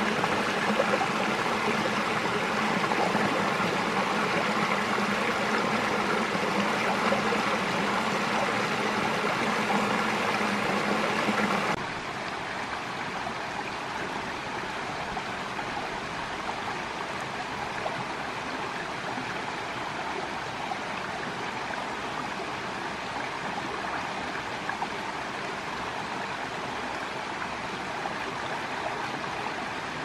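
Shallow rocky mountain brook babbling steadily, water rushing over a small cascade between boulders. About twelve seconds in it changes abruptly to a quieter, thinner babble from a stonier stretch of the stream.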